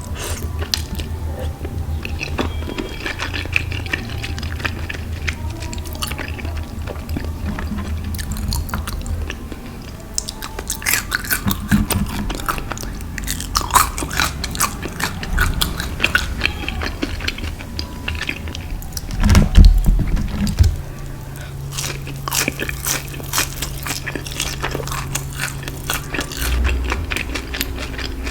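Close-miked eating: repeated bites and crunchy chewing of crisp fried food, with a brief louder low thump about two-thirds of the way through.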